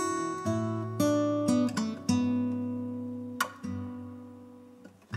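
Background music: acoustic guitar strumming chords. Near the end, one chord rings out and fades before the next strum.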